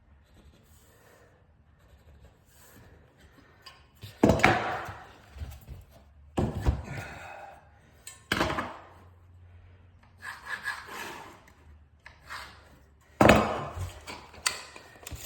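Laminate floor planks being handled and knocked about: four sharp wooden knocks a couple of seconds apart, with sliding and rubbing between them.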